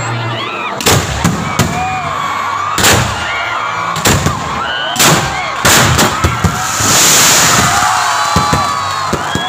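Fireworks bursting overhead in a string of sharp bangs, about one every second, over the chatter and shouts of a crowd. Around seven seconds in, a loud hissing crackle lasts about a second.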